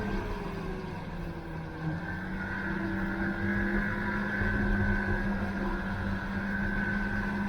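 Snowmobile engine running under way. Its pitch sags over the first two seconds, picks back up, and then holds steady.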